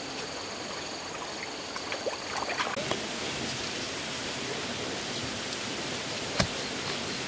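Steady hiss of flowing stream water, with small trickles in the first few seconds. A single sharp knock about six seconds in, as a hoe strikes the ground.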